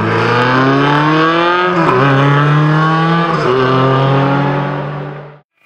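Rally car engine accelerating hard, its pitch climbing, dropping briefly twice as it shifts up, then holding before fading out near the end.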